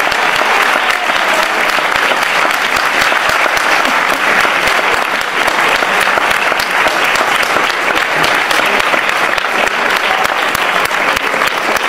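Audience applauding: dense, steady clapping with no break.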